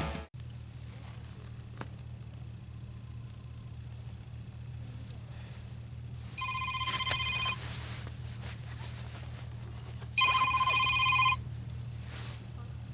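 Telephone ringing: two rings of about a second each, a few seconds apart, over a steady low hum.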